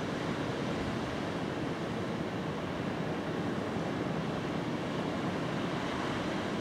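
Sea surf washing steadily onto the shore, a continuous even rush with no distinct breaks.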